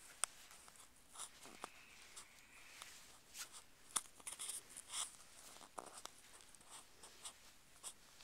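Faint, irregular rustling and scratching of quilted fabric being handled and stitched by hand, with scattered small clicks.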